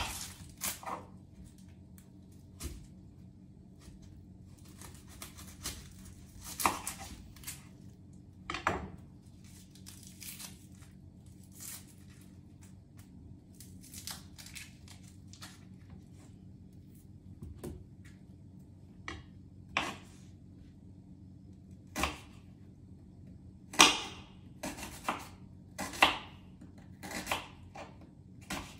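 Red onions being peeled and cut with a knife on a wooden cutting board: scratchy tearing of the papery skins and irregular knocks of the blade on the board. The knocks come louder and more often in the last third, over a faint steady low hum.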